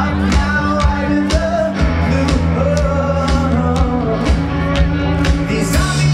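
Indie rock band playing live through a festival sound system: a steady drum beat, bass and guitar, with singing.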